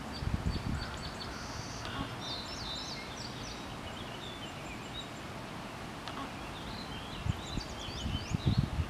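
Small birds chirping and calling in short high notes that rise and fall, over a steady outdoor background, with low rumbles near the start and again near the end.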